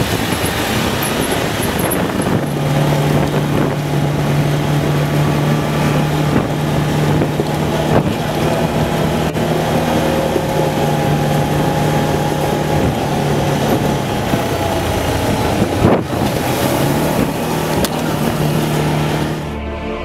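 Side-by-side off-road utility vehicle driving over a rough dirt track. Its engine hums steadily under a constant rumble of wind and tyre noise, with a couple of sharp knocks from bumps.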